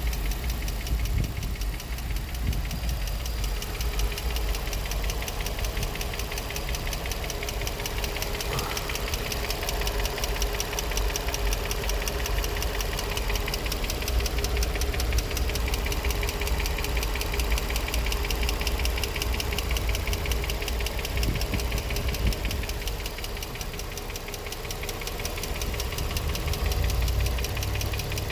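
Infiniti G35's 3.5-litre V6 running with a fast, even knocking tick over a steady engine rumble. The owner cannot place the knock: lifters or spark plugs are suggested, with no check-engine light and new catalytic converters.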